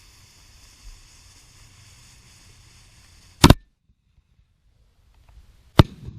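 Faint steady background hiss, broken about three and a half seconds in by a loud sharp click, then two seconds of dead silence, then a second sharp click.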